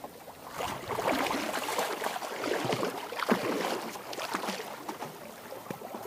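Water sloshing and splashing around a windsurf board as a person climbs onto it and stands up, in several surges a second or so long.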